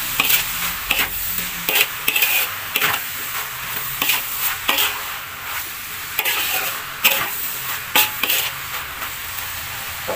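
Metal spatula scraping and tossing vegetables, meatballs and sausage around a wide metal wok, in irregular strokes about once a second, over a steady sizzle of frying.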